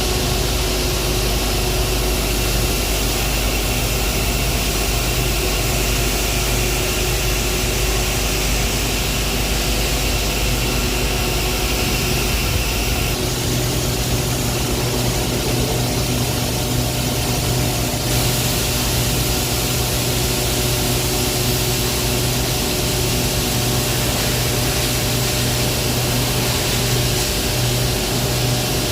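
Loud, steady industrial machinery running: a constant low hum with several steady tones over a broad hiss. The mix of the sound shifts about halfway through and again a few seconds later.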